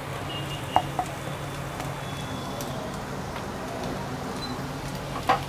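Faint steady sizzle of mashed potato and oil frying in a pan over a low gas flame, under a low steady hum, with a couple of light clicks about a second in and another near the end.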